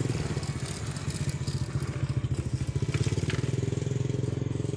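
Small motorcycle engine running steadily at low revs, with a rapid, even pulse.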